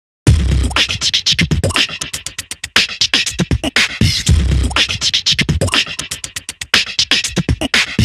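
Intro music with a fast, dense percussive beat and heavy bass hits every second or two.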